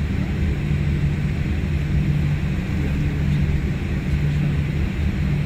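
Steady low drone inside a Boeing 787-8 airliner's cabin as it taxis, the jet engines running at taxi power.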